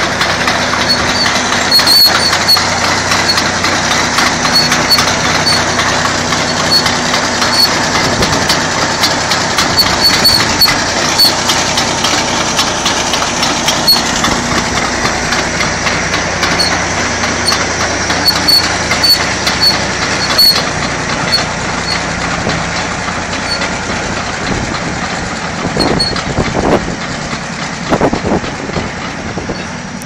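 Bulldozer diesel engine running steadily as the machine crawls on its hydrostatic drive, its steel tracks clattering with repeated short high squeaks. It grows fainter near the end as the machine moves off.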